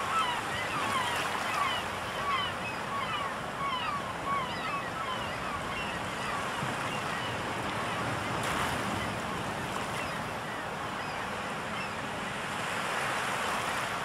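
Surf washing steadily on a shore, with gulls giving a quick series of short, falling calls through the first half and a few more near the end.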